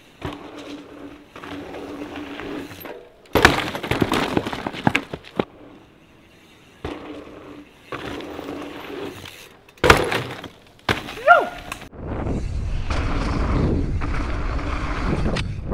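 Trials jib bike ridden through a bike-park jump line: tyres rolling on the dirt with a steady low hum, a loud crackling, crunching stretch about three seconds in, and a sharp impact about ten seconds in as the bike lands. In the last four seconds wind rushes heavily over the microphone.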